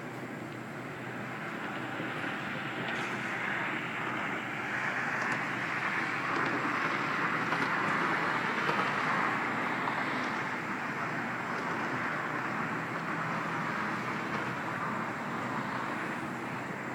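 Outdoor storm ambience: a steady rushing hiss that slowly swells for several seconds in the middle and then eases off, with no clear thunderclap.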